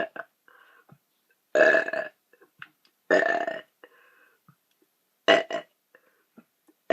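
A young woman belching deliberately, over and over, as she tries to burp as many times as she can in a minute. There are about five burps a second or two apart: two long, drawn-out ones in the first half and two short ones in quick succession near the end.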